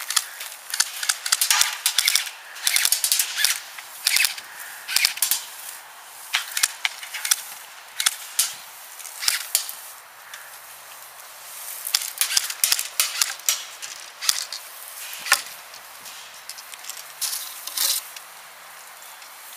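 Airsoft guns firing: sharp, light snapping pops, single shots and short rapid clusters scattered throughout, with a lull in the middle.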